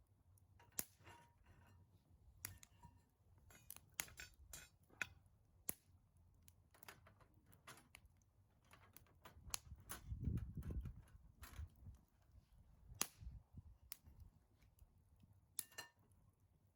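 Faint, scattered sharp clicks and knocks at irregular intervals, with a low rumble about ten seconds in.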